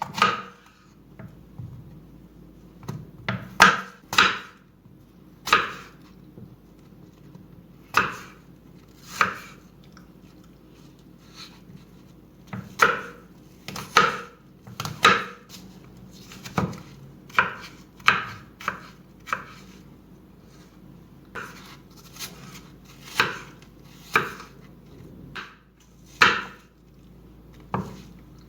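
A knife chopping food on a cutting board: single sharp chops at irregular intervals, roughly one a second, some coming in quick pairs.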